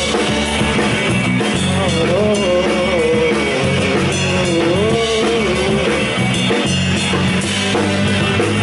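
Live rock band playing loudly and steadily: drum kit, electric bass and electric guitars, with a sliding, wavering melody line over the top in the middle.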